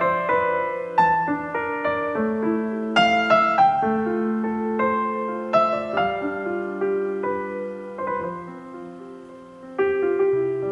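Background piano music: a gentle melody of struck notes over held chords, with a new phrase starting near the end.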